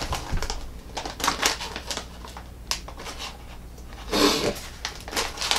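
Plastic jerky bag crinkling and rustling as it is handled and opened: a string of short, sharp crinkles with a louder rustle about four seconds in.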